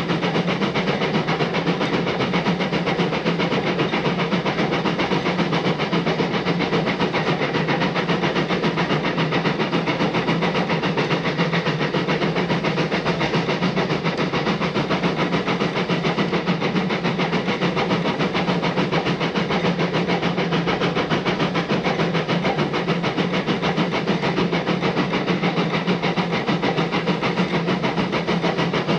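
Narrow-gauge steam locomotive running at a steady speed: an even, rapid chuffing of exhaust beats mixed with hiss and the run of the train on the rails.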